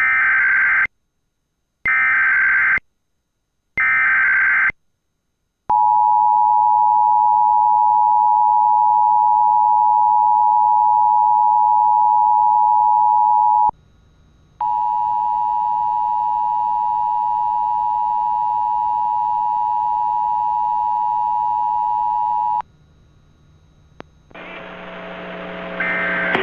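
Emergency Alert System SAME header: three short bursts of warbling digital data about a second apart. These are followed by the EAS two-tone attention signal, held steady for about eight seconds, then after a brief gap by a second, slightly quieter run of the same steady tone for about eight more seconds.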